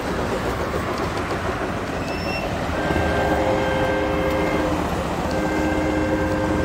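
Train horn sounding two long chord blasts, the first from about three seconds in and the second after a short break near five seconds, over a steady rumble.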